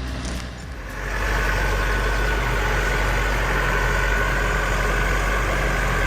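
A heavy machine's engine running steadily. About a second in it gives way to a louder, steady engine noise with a constant high whine over it.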